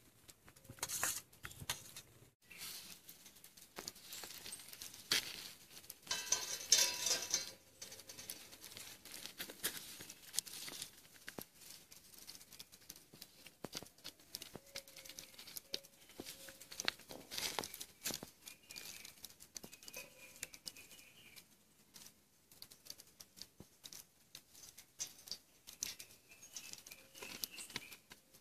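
Scattered small clicks, taps and rustles of food and utensils being handled beside a wood cooking fire, with a louder rustling stretch about seven seconds in.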